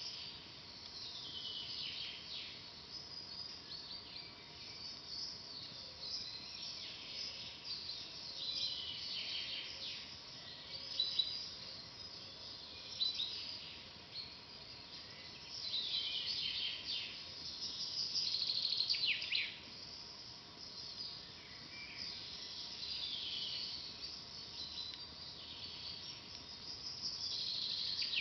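Wild forest birds singing continuously, with many overlapping chirps and quick falling trills.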